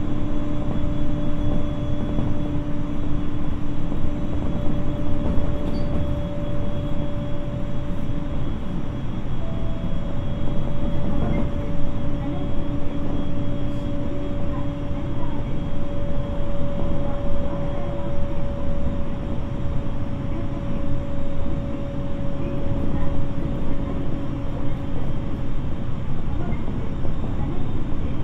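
Interior running sound of a JR East 701-series electric multiple unit motor car with a renewed VVVF inverter: a steady rumble of wheels on rail and a couple of even humming tones from the drive under the floor, the train holding a steady speed.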